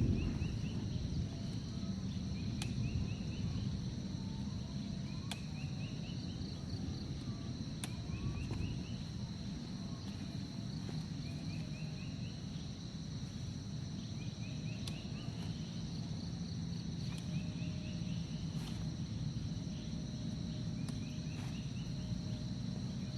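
Forest night-insect chorus: a steady high-pitched drone, with a short rising run of chirps repeating every two to three seconds over a low rumble.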